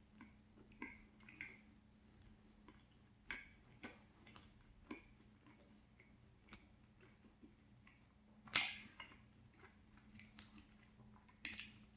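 Faint chewing of a flaky croissant pastry: scattered small clicks and crackles, with one louder crunchy rustle a little past two-thirds of the way through.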